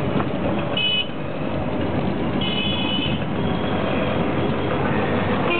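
Auto-rickshaw engine running at speed in street traffic, heard from inside the open cab. Two high horn beeps cut through it, a short one about a second in and a longer one at about two and a half seconds.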